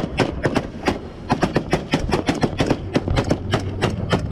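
Rapid gunfire from rifles on a patrol boat, a few shots at first and then a steady run of about five shots a second, over the low rumble of the boat.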